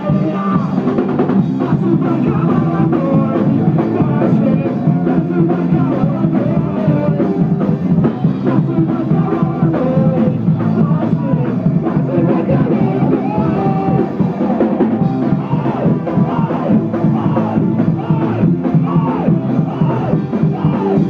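Live band music played loud, with a drum kit and a male singer on a microphone, as heard from the audience.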